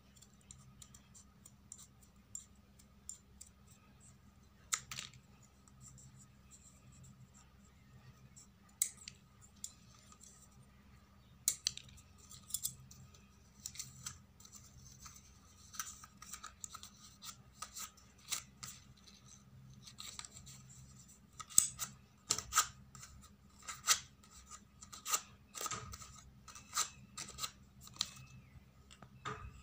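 Large steel scissors snipping through folded paper: short, sharp snips, scattered at first, then coming quickly and louder through the last third.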